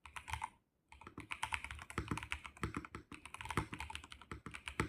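Fast typing on a VGN N75 75% gasket-mount mechanical keyboard: a rapid run of keystroke clicks with a brief pause just under a second in.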